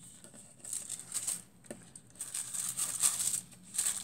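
Thin tissue paper and a foil transfer sheet crinkling as they are handled and peeled up off the card, in irregular rustling bursts that start under a second in and grow busier and louder in the second half.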